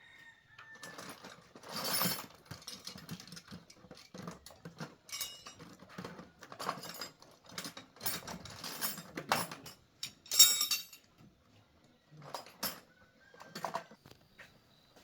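Irregular metallic clinks, knocks and scrapes of hand tools being handled during a motorbike tyre and inner-tube change, loudest about two seconds in and again around ten seconds.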